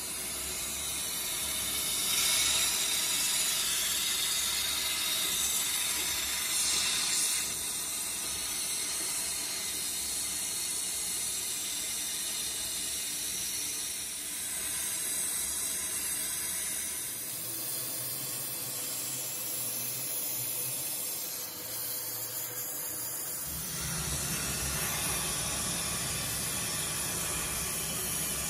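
Oxy-fuel torch flame hissing steadily as it heats a bent axle shaft to straighten it. A low hum comes in late on.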